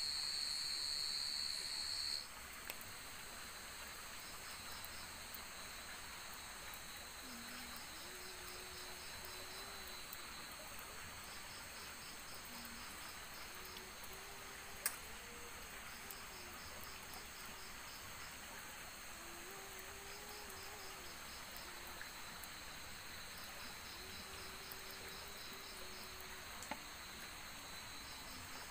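Night insects, crickets and katydids, trilling in steady high tones with regular pulsed chirps; a louder high drone among them cuts off about two seconds in. A faint low wavering call repeats several times, and there is a sharp click about halfway through.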